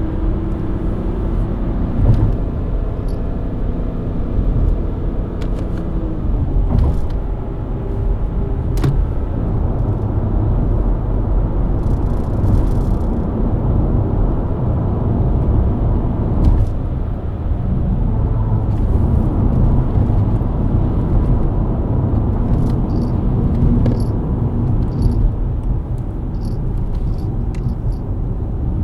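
BMW E90 323i inline-six engine running at highway cruise with steady tyre and road rumble. The engine note rises and falls a little in the first several seconds, then holds steady.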